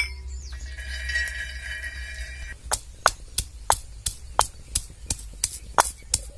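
Stone pestle pounding roasted peanuts in a stone mortar, a regular knocking of about three strikes a second that starts a little before halfway through. Before it, a steady high-pitched tone holds for about two seconds.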